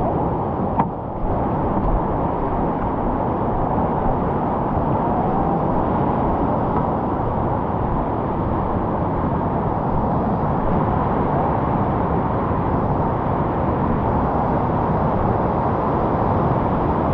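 Whitewater rapid rushing: a steady, loud noise of churning river water, with one sharp knock about a second in.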